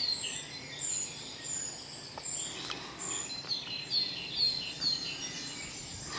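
Dawn chorus in woodland: several birds singing at once, with many short, high chirps and repeated falling notes overlapping over a faint steady hiss.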